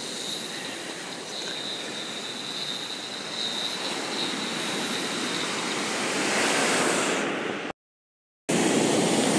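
Waves breaking and washing up a sandy beach, a steady rushing wash that grows louder over the stretch. Near the end the sound cuts out completely for under a second, then returns.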